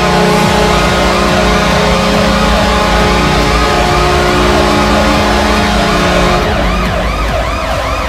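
Washington Capitals arena goal horn blasting a steady, loud low chord, with rising-and-falling siren-like whoops repeating over it. The horn cuts off about six and a half seconds in, leaving the whoops and music.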